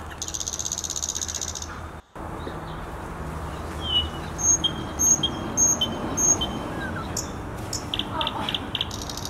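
Small birds chirping: a fast buzzing trill in the first two seconds, then a string of short high chirps and a few quick pips near the end, over a steady low hum.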